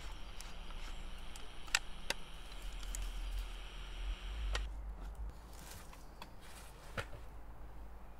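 Small sharp clicks and knocks of military kit being handled as a radio handset is stowed in a backpack, four of them spread over the stretch, over a low steady rumble and light hiss that fade away about halfway through.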